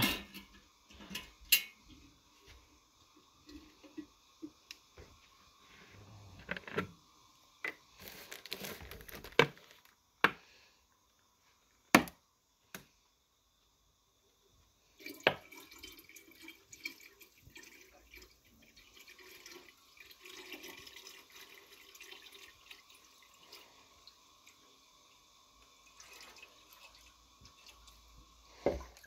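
Knocks and clinks from handling a glass swing-top drink-dispenser jar, then, from about halfway, a steady splashing of water poured from a plastic jug into the glass jar.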